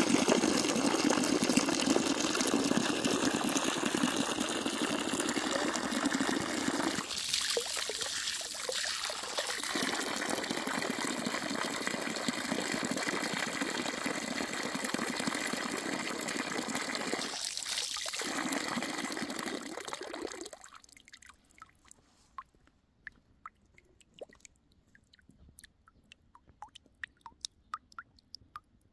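Running water, steady for about twenty seconds and then stopping suddenly, leaving only faint scattered ticks.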